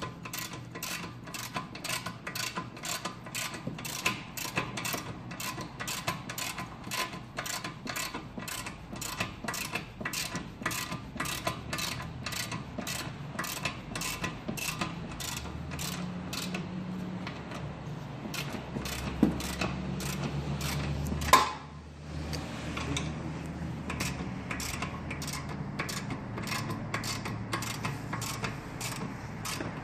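Half-inch-drive ratchet clicking steadily, about two clicks a second, as it turns out a 14 mm suspension arm bolt. A low hum comes in for a few seconds past the middle, ending in one sharp knock.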